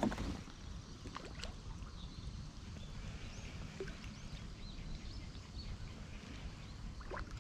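Outdoor pond background with a steady low rumble and a few light knocks, the first one loudest, plus faint high bird chirps a few seconds in.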